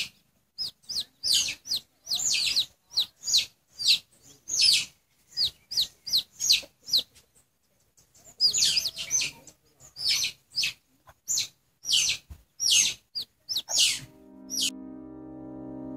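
Chicks peeping loudly and repeatedly: short, high calls that fall in pitch, coming in quick runs with a pause of about a second midway. Music starts near the end as the peeping stops.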